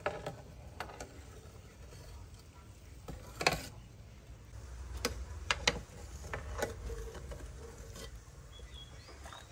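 Sparse metallic clicks and knocks over a low steady rumble around a large aluminium pot of pig intestine boiling with lemongrass, as from the ladle knocking against the pot. The loudest knock comes about three and a half seconds in, with a quick run of clicks a couple of seconds later.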